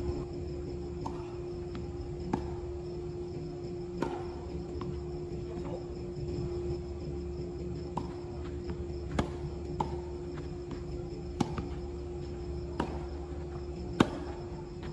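Tennis rally: rackets striking the ball and the ball bouncing on the court, sharp pops every one to two seconds, the loudest near the end. Behind them run a steady hum and chirping insects.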